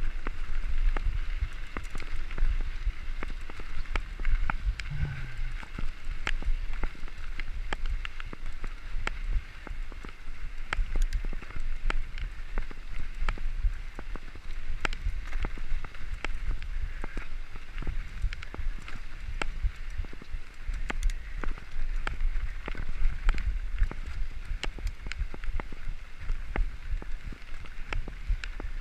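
Mountain bike riding fast over a rough dirt and gravel road: tyres crunching on the gravel and the bike rattling and knocking over bumps, with a low rumble of wind. The clicks and knocks come many times a second and don't let up.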